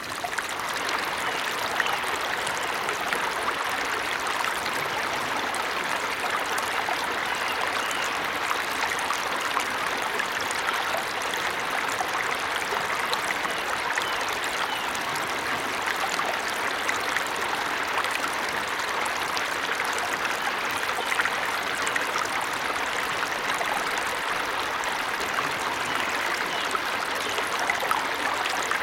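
Waterfall: a steady rush of falling water with a fine, continuous splashing and trickling.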